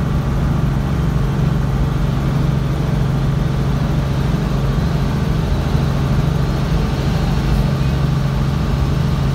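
Light aircraft's engine drone heard from inside the cockpit while moving along the runway: a loud, steady low hum that does not change.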